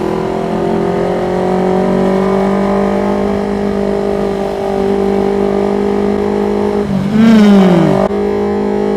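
Yamaha MT25 parallel-twin motorcycle engine running at steady revs while riding in traffic. About seven seconds in, a passing vehicle's engine note sweeps down in pitch over about a second, then the sound changes abruptly to another steady engine drone.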